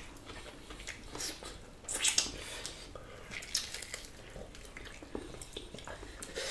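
People eating with their hands: chewing and wet mouth smacks that come and go, the loudest about two seconds in.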